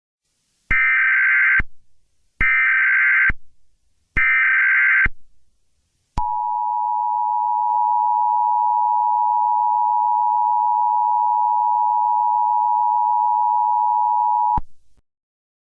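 Emergency Alert System alert tones. The SAME data header sounds as three short bursts of buzzing two-pitch data tone, about a second apart. Then the two-tone attention signal (853 and 960 Hz) is held steady for about eight seconds and cuts off, signalling that an emergency message follows.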